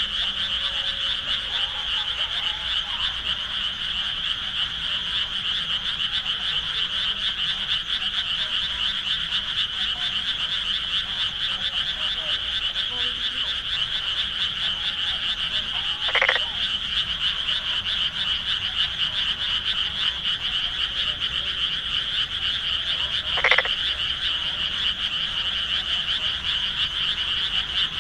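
A dense chorus of many frogs calling without a break. Two short, louder sounds stand out over it, a little past halfway and again about seven seconds later.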